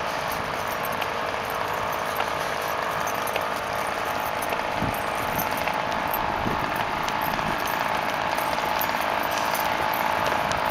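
Small engine of an HPI radio-controlled truck running steadily, a buzzing mechanical drone that grows a little louder toward the end.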